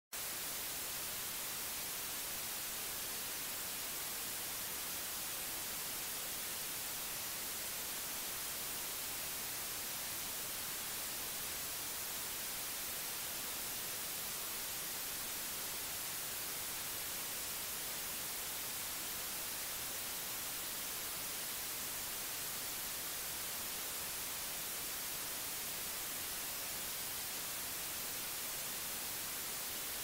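Steady white noise: an even, unbroken hiss, strongest in the high end, with no change in level.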